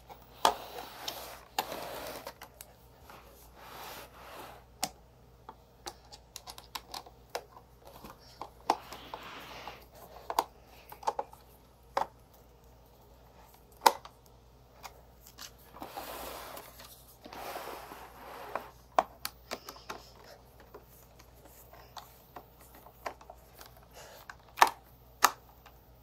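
Irregular small clicks and brief scraping of a screwdriver turning the screws that hold a Roomba's battery cover on.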